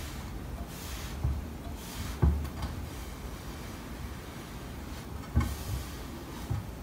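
Fingers rubbing a wet ceramic transfer print down onto a plate to press out water and air bubbles: faint rubbing and handling sounds with a low rumble. There are two sharp knocks, about two seconds in and again about five seconds in.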